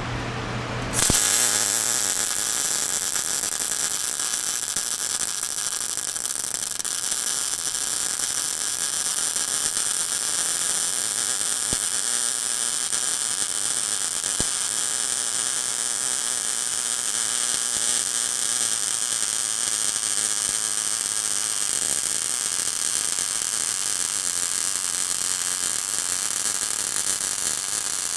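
Lincoln Pro MIG 140 welder humming, then its MIG arc strikes about a second in and runs as a steady, loud crackling sizzle while a bead is laid on 1/4-inch steel plate.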